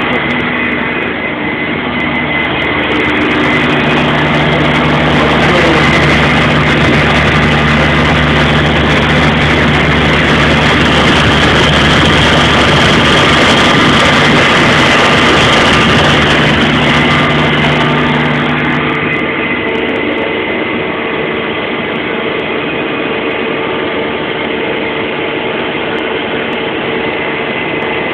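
Haas CNC lathe running while turning chuck jaws: a steady machine hum with a rising, hissy cutting noise over most of the first two-thirds. It then eases back to the plainer hum of the running machine.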